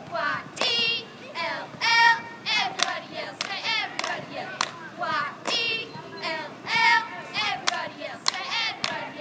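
Several girls' voices shouting a cheer in unison, broken into short chanted lines, with sharp hand claps between them.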